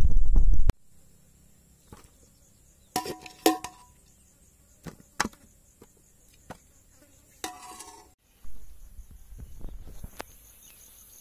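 Faint insects chirping with a steady high drone, broken by scattered sharp clicks and short knocks. A loud low rumble on the microphone opens the clip and cuts off abruptly under a second in, and a softer rumble returns later.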